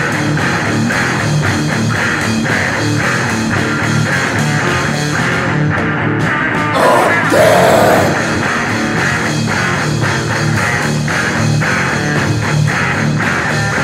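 Instrumental stretch of a heavy rock song, with guitar and a steady drum beat and no vocals; the high end briefly drops out about six seconds in.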